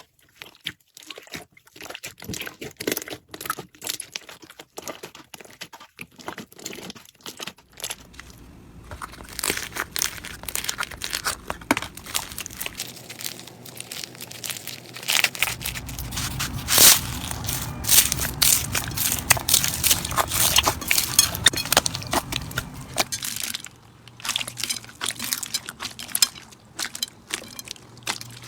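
Slime being squeezed and poked by hand, making a stream of small crackling clicks and pops. The clicks thicken into a dense crunching about a third of the way in and thin out again near the end.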